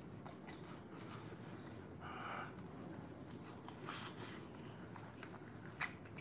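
Faint chewing and mouth sounds of a person eating chicken, with a sharp click near the end.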